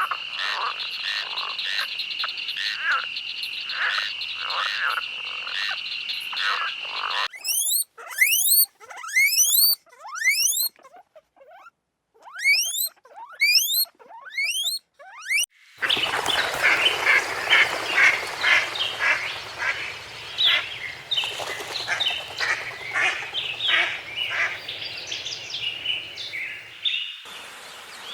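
Small animals calling. A steady high trill pulses for about seven seconds, then gives way to a run of quick rising chirps, about two a second, with short breaks. From about halfway on, a dense chorus of overlapping chirps follows.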